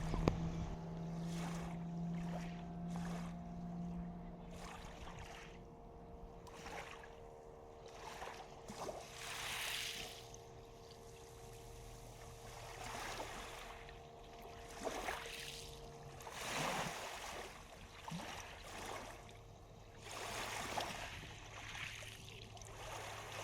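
Small waves washing and lapping on a stony reservoir shore, swelling every few seconds, over a steady low engine hum.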